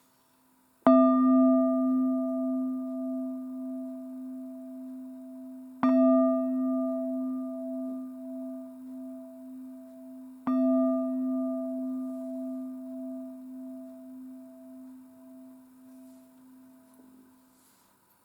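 A metal singing bowl struck three times with a stick, a few seconds apart, each strike ringing out at the same low pitch with a wavering tone that slowly fades.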